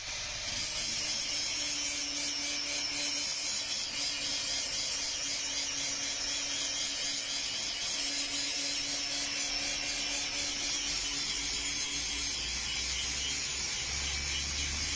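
Steady high hiss of a hot leaf-spring steel kukri blade sizzling as it is quenched in a tube of liquid. It holds at an even level throughout.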